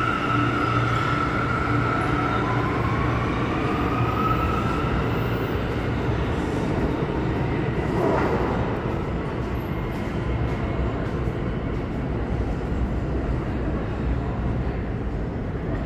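R179 subway train pulling out and accelerating away through the tunnel. Its propulsion whine rises in pitch over the first few seconds, over a steady rumble of wheels on rail that slowly fades as the train recedes.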